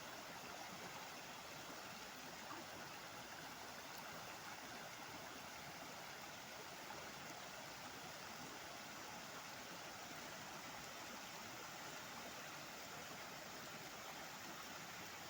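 Flowing water rushing steadily, a stream or small waterfall, with no change in level.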